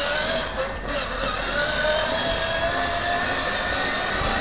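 Battery-electric Ferrari F1 ride-on toy car driving along, its motor and gearbox giving a whine that rises in pitch over the first second or so as it picks up speed, then holds fairly steady.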